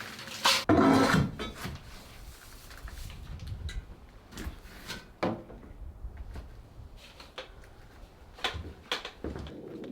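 Straw and coop litter being handled, with a loud rustling scrape about a second in and then scattered light knocks and rustles at an irregular pace.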